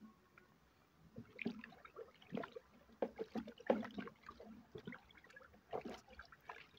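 Wooden stick stirring raw rice in hot salted water in a plastic bowl, sloshing and swishing unevenly from about a second in: the rice being mixed before it is washed.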